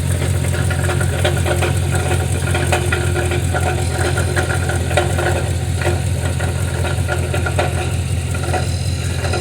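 A 2005 Chevrolet Suburban's 6.0-litre V8 idling steadily, with an irregular chatter and rattle from under the vehicle: the sign of a crumbling catalytic converter.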